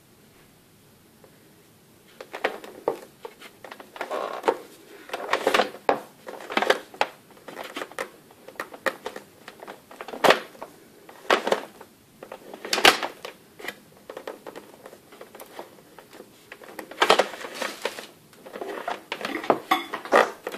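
Power cord being fed by hand into the cable storage in the plastic base of a Moulinex i-Companion XL cooking food processor: irregular clicks, taps and scraping of the cord against the base and worktop, starting about two seconds in, with a few sharper knocks.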